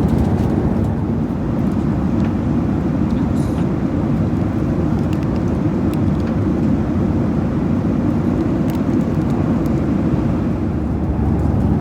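Steady roar of a Skymark Boeing 737-800's jet engines and rushing air, heard from inside the passenger cabin.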